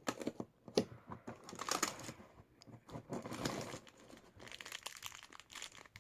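Advent calendar packaging being torn open and rustled by hand, with irregular crinkling, tearing and small clicks of the toy parts being handled.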